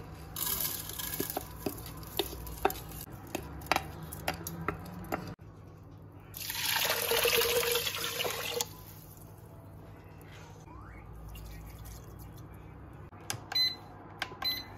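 Dry rice grains pour into a multicooker's metal inner pot with a scatter of small clicks. Water is then poured in, splashing for about two seconds. Near the end, a Redmond multicooker's control panel gives two short beeps as its buttons are pressed.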